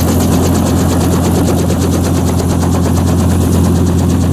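Helicopter running close by: a steady low hum under the rapid, even chop of the rotor blades.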